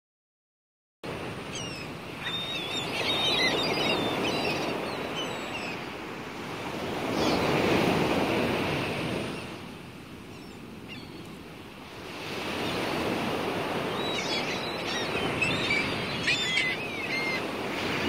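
Waves washing in and drawing back, swelling and fading several times, with scattered gull calls over them in two clusters, near the start and in the last few seconds. The sound begins about a second in.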